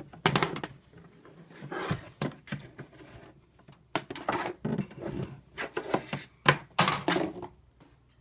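Handling noise: an irregular series of knocks, clicks and rustling as a box fan and its power cord are moved about to plug it in. The fan is not yet running.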